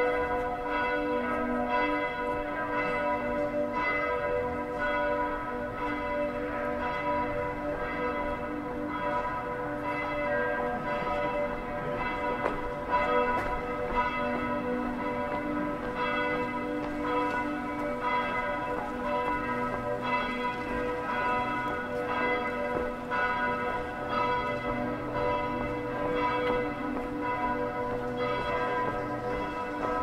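Several church bells ringing together in a continuous peal, strike after strike with long overlapping ringing tones.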